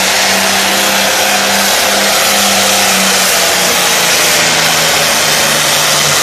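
Turbocharged diesel engine of a Limited Pro Stock pulling tractor running flat out under full load while dragging a weight sled. Its pitch drops a little about halfway through as the sled slows it toward the end of the pull.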